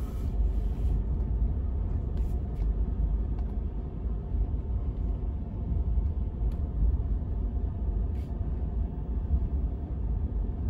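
Steady low rumble of a Ford F-150 pickup rolling slowly down a dirt driveway, heard from inside the cab, with a few faint clicks from the track.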